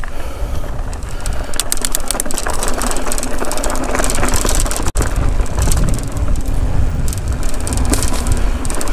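Mountain bike riding along a dirt singletrack: tyre and trail rumble with wind buffeting the camera microphone, and bursts of clattering rattles over bumps about two seconds in and near the end.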